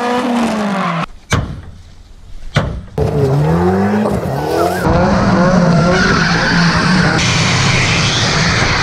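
Drift cars at full throttle, engines revving up and down with tyres squealing, cut together from several clips. About a second in it drops to a quieter stretch broken by two sharp clicks, then an engine comes back in, rising and holding high revs against a hiss of tyre squeal.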